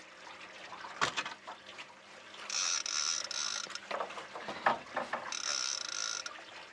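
Fishing reel cranked in two bursts of about a second each, its gears whining, while an angler reels in a hooked fish. A sharp click comes about a second in.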